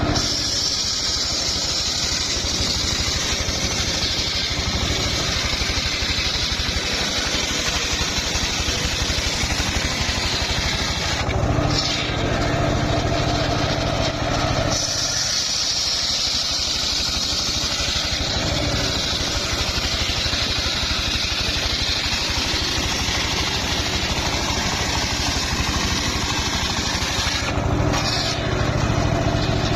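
Engine-driven home-built circular sawmill running steadily, its blade sawing through a hard old mahogany log. The engine's note shifts briefly twice.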